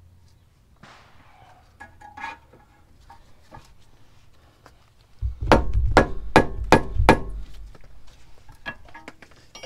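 Five sharp hammer blows on steel, about half a second apart, beginning about five seconds in, struck on a ball joint separator to pop the ball joint out of the steering knuckle. Light clinks of tools on metal come before and after the blows.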